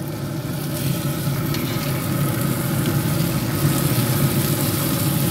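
Ribeye steaks sizzling on a very hot cast iron griddle plate as they are flipped with metal tongs, with a few light tong clicks. A steady low hum runs underneath.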